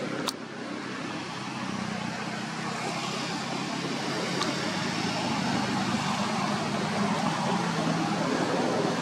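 Steady rushing background noise with a low hum, slowly growing louder, like distant traffic; a single short click just after the start.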